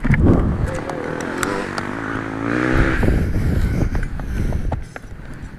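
Dirt bike engine catching suddenly and loud, then revving, its pitch climbing for about two seconds before dropping back, and fading near the end.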